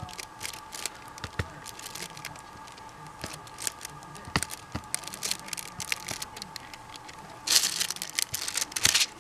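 Resin diamond-painting drills being pressed onto the canvas with a wax-loaded multi-placer pen: scattered small clicks and taps. Near the end, a louder second or so of crinkling as the clear plastic film over the canvas is handled.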